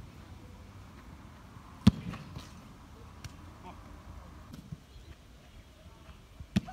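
A football struck hard twice: a sharp thud about two seconds in and another near the end, with a few fainter knocks between them.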